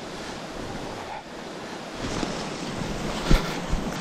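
Small mountain trout stream rushing steadily over rocks, with two soft thuds near the end from steps through deep snow.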